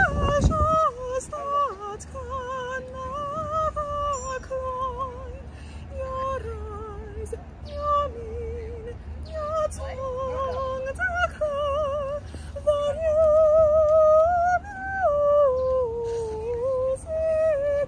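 A young woman singing solo in a high soprano voice, with a wide vibrato on the held notes and no accompaniment, over a low steady rumble.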